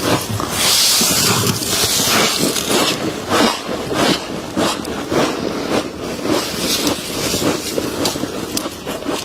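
Freezer frost crunching close to the microphone: a dense, unbroken run of crisp crackles and crunches. It is hissiest in the first few seconds, then goes on as separate crunches several times a second.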